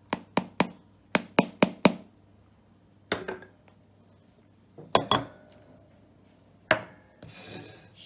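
Sharp knocks of a mini food chopper's blade attachment and a utensil against its plastic bowl as the thick frozen-fruit blend is knocked and scraped off. First comes a quick run of about eight taps over two seconds, then single knocks and a pair spaced out over the next few seconds.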